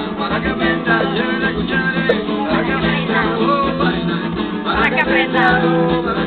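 Live acoustic music: an acoustic guitar played in a steady accompaniment with a gliding melody line over it.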